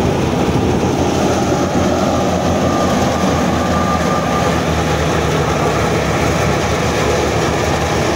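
Tractor-driven wheat thresher running steadily at full work, threshing wheat and blowing out straw and chaff, a loud unbroken mechanical churn. A faint steady whine joins in about three seconds in.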